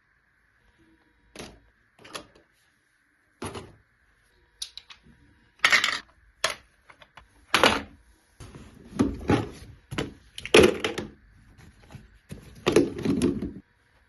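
Household objects being handled and set down during cleaning: a series of knocks, clicks and light clatter, sparse at first and busier in the second half, with longer stretches of rubbing or shuffling noise between the knocks.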